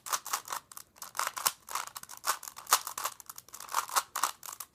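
3x3 Rubik's Cube being turned quickly by hand, its plastic layers clicking in a rapid, irregular run of sharp clicks.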